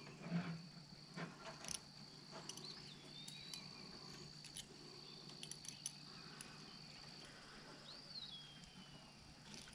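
Faint steady high insect trill that stops about three-quarters of the way through, with scattered small metal clicks and clinks as stainless wire-rope clamps are tightened on a well pump's lifting cable. Two short swooping whistles, one about three seconds in and one near the end.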